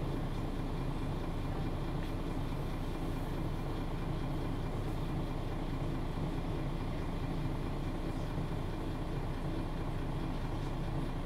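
Interior sound of a Mercedes-Benz O530 Citaro G articulated city bus under way: a steady engine hum with even road and cabin noise.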